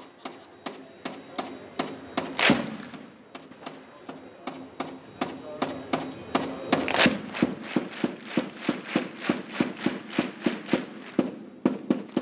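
A large crowd of football supporters clapping in unison, a steady beat of about two to three claps a second that quickens slightly, with scattered voices underneath.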